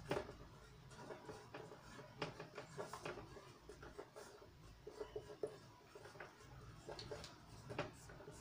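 Marker pen writing on a whiteboard: an irregular run of short, faint scratches and taps as letters are stroked out.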